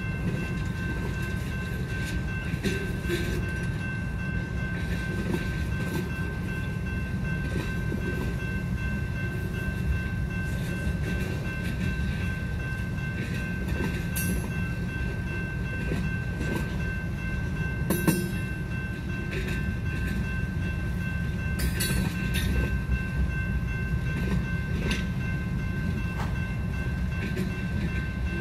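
Freight train boxcars and lumber-loaded flatcars rolling past at a grade crossing: a steady low rumble of wheels on rail, with a few sharp clanks about 14, 18 and 22 seconds in, the one near 18 seconds the loudest. Steady high tones run over the rumble.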